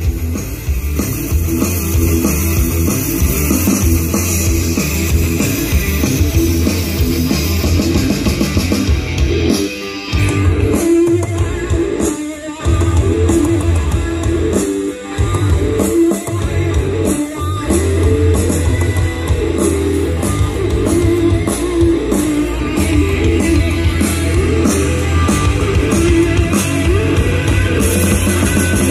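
Rock music with guitar and drums played loud through a Polytron PAS 8E22 active speaker, with heavy bass, as a sound test. The music thins briefly twice near the middle.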